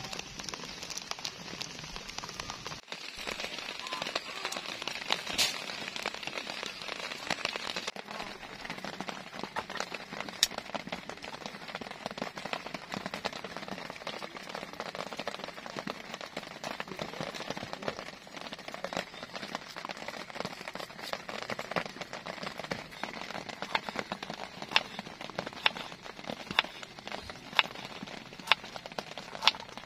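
Steady rain falling, with many sharp individual drop hits standing out against the hiss of the downpour.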